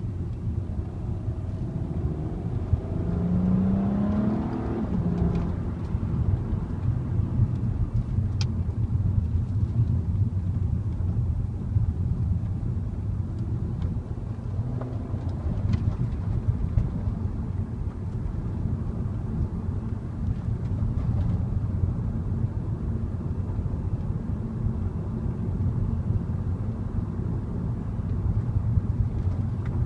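Volkswagen Passat R36's 3.6-litre VR6 engine driving on the road, a steady low drone with road noise; about three to five seconds in, the engine note rises as the car accelerates.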